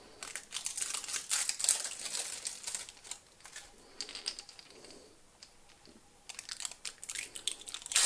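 Thin hot stamping foil sheet crinkling and crackling as it is handled, rubbed down and peeled off lure blanks, in quick irregular crackles with a quieter stretch in the middle.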